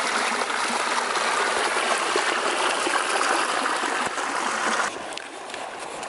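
Creek water running over mossy rocks into a small pool, a steady close trickle and splash. About five seconds in it cuts off abruptly and gives way to a fainter water sound.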